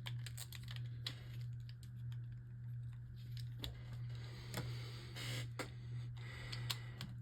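Light plastic clicks and handling noises from Beyblade tops and launchers being set up, scattered irregularly over a steady low hum.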